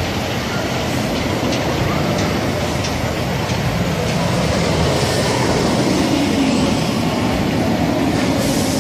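Steel roller coaster train running along its track: the steady, loud noise of the wheels on the rails.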